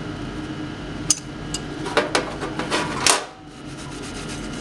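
Metal tools clinking against each other and the metal tub as they are handled in the water of an electrolysis tank. There are a few sharp clinks, then a quicker run of knocks ending in a louder clatter about three seconds in, over a steady low hum.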